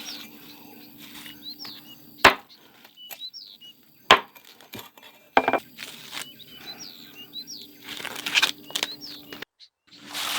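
Small birds chirping repeatedly in short rising-and-falling notes, with three sharp knocks about two, four and five and a half seconds in and a brief rustle near the end.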